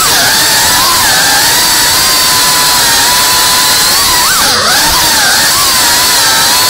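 FPV racing quadcopter's brushless motors and propellers whining at a high pitch, the pitch wavering up and down with the throttle, with a quick drop and rise about four and a half seconds in.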